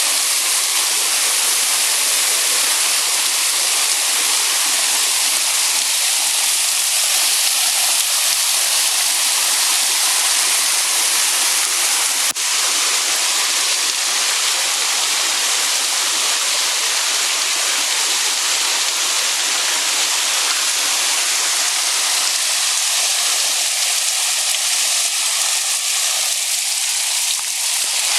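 Waterfall: a steady, loud rush of falling water, with a single sharp click about halfway through.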